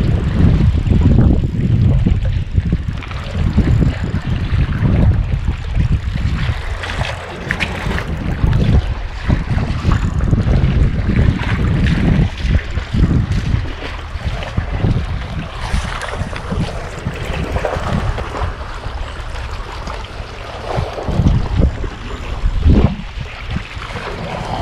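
Wind buffeting the microphone in heavy, uneven gusts, over sea waves washing among concrete breakwater tetrapods.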